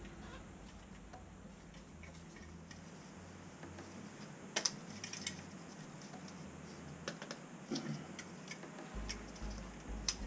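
Scattered light clicks and ticks of small metal pop-up drain parts being handled and fitted together in gloved hands, the sharpest about four and a half seconds in.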